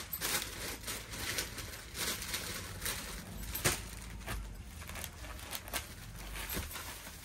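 Rustling and crinkling of suits being handled and unfolded, with scattered light clicks and one sharper click about three and a half seconds in.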